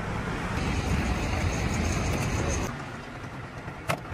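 Motor vehicle engine running, a steady rumble that eases off about two and a half seconds in, with a single sharp click near the end.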